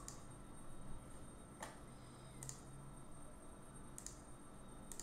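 Faint computer mouse clicks, about five spaced a second or so apart, over a low steady hum from the recording setup.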